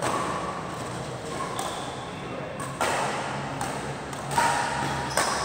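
Badminton rackets striking a shuttlecock in a doubles rally: four sharp hits, spaced a few seconds apart at first and then coming faster, echoing in a large hall.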